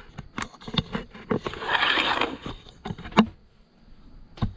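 Handling noise as a camera is picked up and repositioned: scattered clicks and knocks, a rustling scrape lasting about a second in the middle, and one sharp knock about three seconds in.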